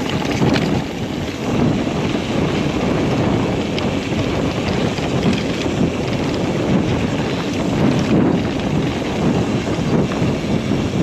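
Wind rushing over the microphone of a mountain bike ridden along a dirt track, with its knobby 29-inch Hutchinson Toro tyres rolling over the ground; a steady, loud noise.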